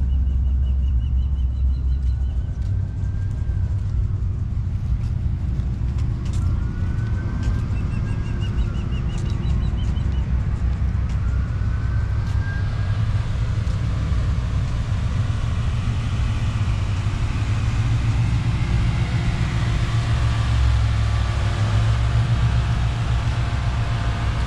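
Outdoor ambience: a steady low rumble, with trilling bird chirps twice in the first half and the sound of a car growing louder in the second half.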